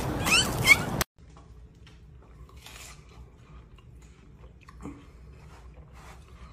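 A loud first second with short rising squeaks cuts off suddenly, then a buck deer bites and chews a slice of watermelon with faint, scattered wet crunches.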